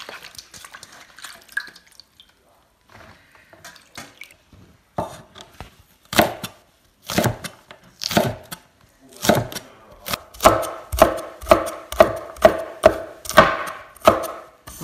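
Chinese cleaver chopping green beans on a wooden cutting board. The chops come roughly one a second at first, then settle into a steady run of about two a second from about ten seconds in, each chop ringing briefly.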